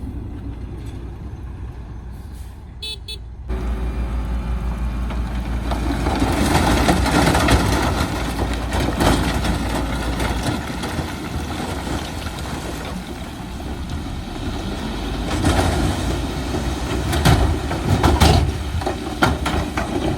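Heavy diesel trucks and earthmoving machinery running with a deep steady rumble, with a brief high-pitched toot about three seconds in and scattered clanking from about fifteen seconds in.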